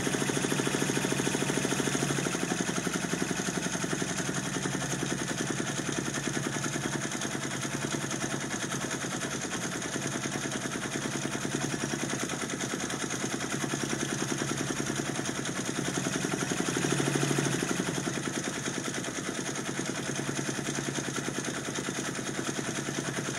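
Brother multi-needle embroidery machine stitching steadily, a fast, even run of needle strokes with the machine's clatter.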